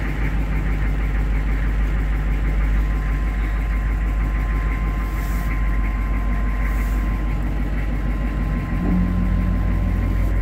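Old dump truck's engine idling steadily, heard from inside the cab, with a thin steady whine over it. About nine seconds in the engine note changes, as the PTO is being engaged to raise the dump body.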